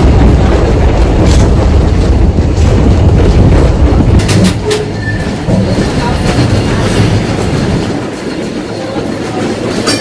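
Old open electric tramcar running on its rails: a loud low rumble with sharp clicks of the wheels over the track, a few together about four and a half seconds in. The rumble eases off after about seven seconds.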